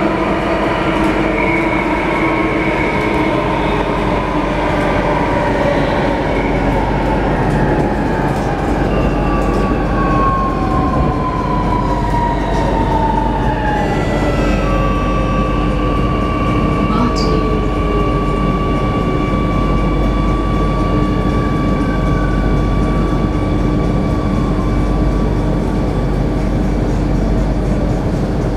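Inside an SMRT C830C metro train running through a tunnel: a steady rumble of wheels and running gear, with the electric whine of the drive falling slowly in pitch as the train slows for the station. About halfway a steady high whine joins in.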